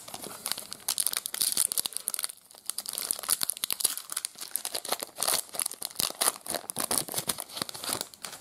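Foil wrapper of a trading card pack crinkling and tearing as it is pulled open by hand: a dense run of sharp crackles, with a brief lull a couple of seconds in.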